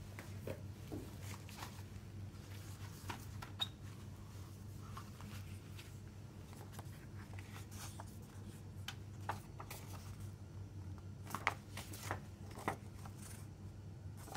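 Paper booklet and fold-out paper insert of a CD package being handled and unfolded: scattered soft rustles and taps, busiest near the end, over a steady low hum.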